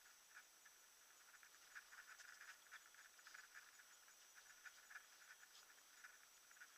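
Near silence: faint, irregular crackling ticks over a steady thin high whine.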